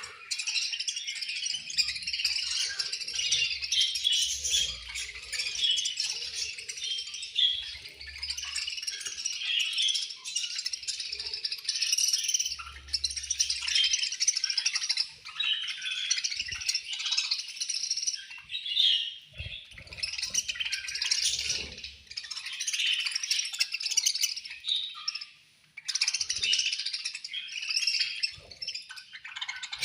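A group of budgerigars chirping and chattering continuously, many rapid high-pitched chirps overlapping, with a brief lull near the end.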